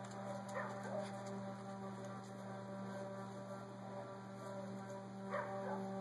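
Steady low drone of several held tones stacked in pitch: the unexplained 'strange noise' heard in the sky. A dog gives two short yelps, about half a second in and again near the end.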